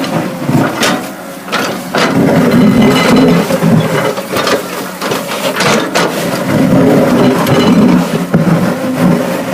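Caterpillar excavator's diesel engine working under load while digging, its note swelling and easing several times, with a few sharp knocks.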